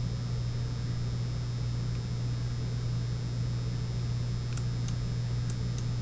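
Steady low electrical hum with a faint hiss underneath, and a few faint ticks near the end.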